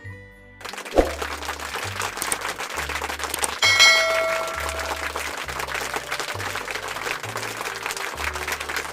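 Background music with a steady low beat. Under it runs a dense crackling, applause-like noise, with a thump about a second in and a bell-like ding a little before four seconds.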